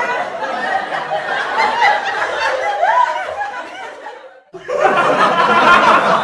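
Canned studio-audience laughter from a laugh track, many voices together. It fades away about four seconds in, then cuts back in abruptly, a little louder.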